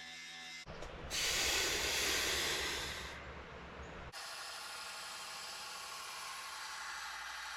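Angle grinder grinding the bevels into a steel knife blade: a steady hissing grind, loudest for about two seconds near the start, then steadier and quieter, broken by abrupt cuts.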